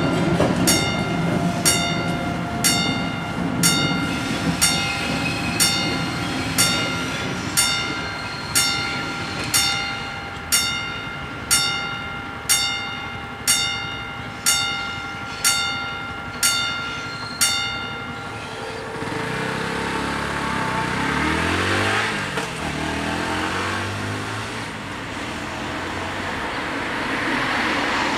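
Level-crossing warning bells striking about once a second, with a freight train rumbling over the crossing at first. The bells stop about 17 seconds in as the crossing clears, and then a car drives past with its engine note sliding in pitch, and more traffic approaches near the end.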